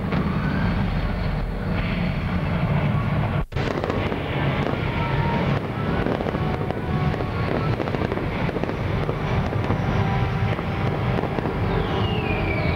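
Show fireworks and pyrotechnic effects going off in a dense, continuous rumble and crackle. The sound cuts out for an instant about three and a half seconds in, and a falling whistle comes in near the end.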